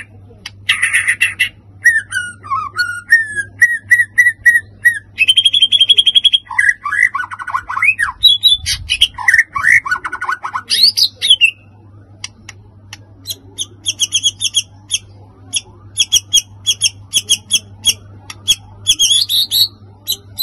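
White-rumped shama singing a varied, fast song. Quick trills and chattering phrases open it, then sliding whistled notes come in the middle, and a long run of rapid, repeated high ticking notes fills the second half.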